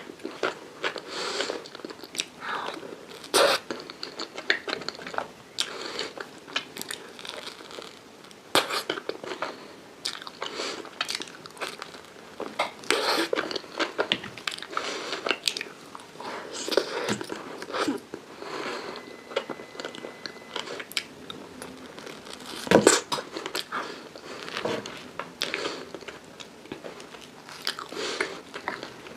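Close-up eating sounds of chocolate caramel profiteroles: irregular crunching bites into the coated pastry and wet chewing, with one especially loud crunch a little past the middle.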